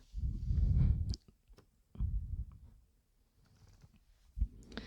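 Handling noise from a microphone cable and plug being fitted to a camcorder: small clicks and low rubbing, with a short knock near the end.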